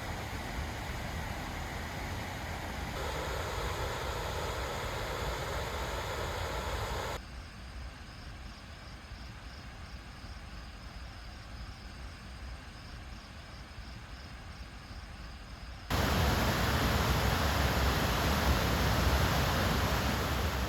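Steady rushing outdoor noise with no distinct events, in several cut-together segments that jump in level about 3, 7 and 16 seconds in.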